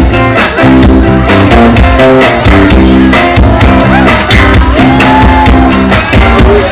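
Loud pop music with a steady drum beat and sustained chords, an instrumental passage between sung lines.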